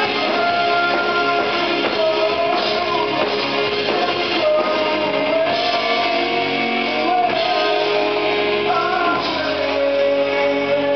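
Live rock band playing loudly: electric guitars, drums and keyboards with a singer's voice over them.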